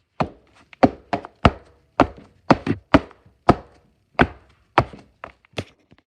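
A quick series of about a dozen sharp knocks, irregularly spaced roughly half a second apart.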